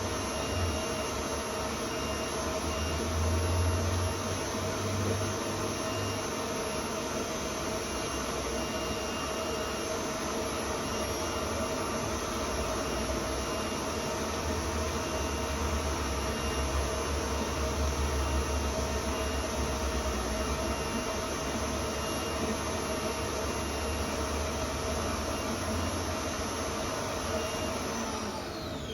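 Stand mixer running with its whisk attachment, whipping white chocolate mousse with cream: a steady motor hum with the whisk churning, whose pitch falls away as the mixer is switched off and winds down near the end.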